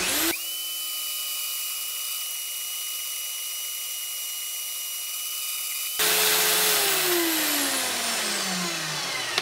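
Small bandsaw's motor switched on, whining up to speed and running with a steady high whine. About six seconds in, a louder rasping noise of the blade cutting the brass blank takes over as the motor's pitch falls steadily.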